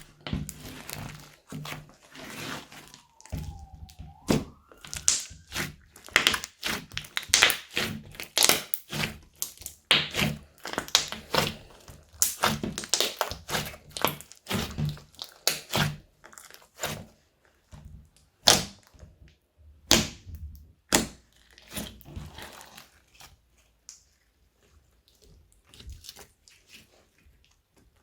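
Hands squeezing and folding slime: a dense run of sticky clicks and pops from air pressed out of it, with a few louder snaps about two-thirds of the way through, thinning out near the end.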